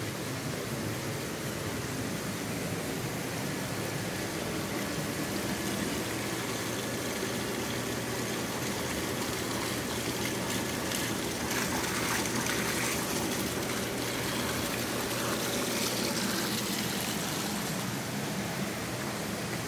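Steady rush of flowing water from a stream or small cascade.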